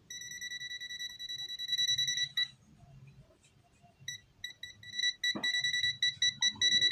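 UNI-T UT33D+ multimeter's buzzer in non-contact voltage mode, beeping rapidly in a high-pitched tone: the sign that it is sensing live AC mains. The beeping stops for a second or so about two and a half seconds in, returns in scattered beeps, and goes steady again near the end. A single click comes a little past five seconds.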